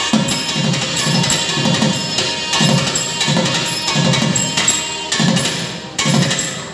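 Thavil drums played in a fast rhythmic pattern: sharp cracking stick and thimble strokes over deep, booming strokes that recur about twice a second. The playing thins out briefly near the end.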